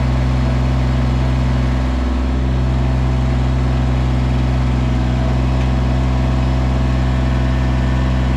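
Kubota BX23S compact tractor's three-cylinder diesel engine running steadily.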